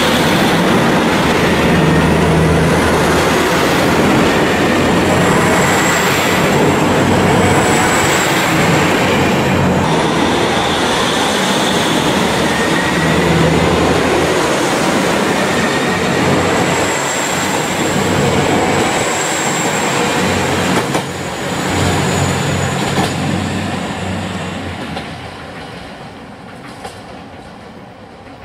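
KiHa 261 series diesel multiple unit express running close past on departure, its diesel engines throbbing under a steady high whine. The noise fades away over the last few seconds as the train draws off.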